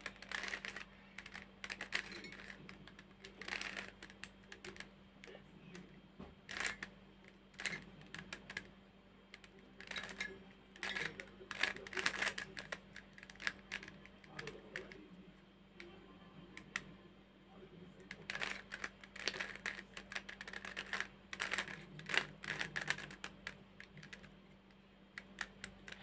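A plastic 3x3 Rubik's cube being twisted by hand: irregular bursts of quick clicking and clacking as its layers turn, with short pauses between runs of moves. A faint steady hum runs underneath.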